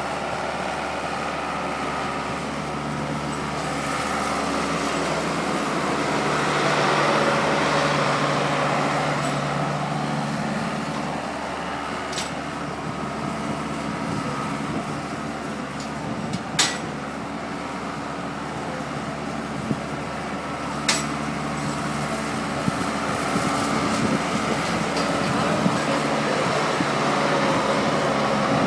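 Skid steer loader's engine running, swelling louder for several seconds and easing off again as it is worked. Three sharp knocks stand out, about twelve, sixteen and twenty-one seconds in.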